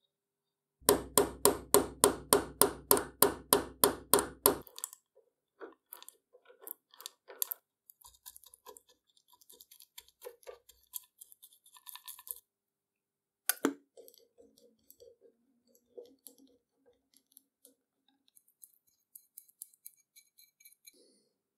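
Workshop handling sounds at an open gearbox: a quick run of about a dozen loud clicks, about three a second, in the first few seconds, then soft sticky squishing and small clicks as grease is worked into the gears by hand. A single sharp knock comes about midway.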